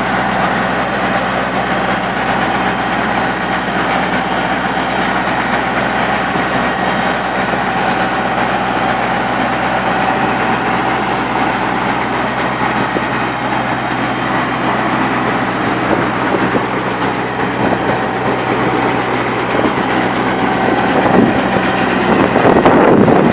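Tractor engine running steadily while driving a small round baler, with a constant mechanical clatter over the engine hum; it grows louder and rougher near the end.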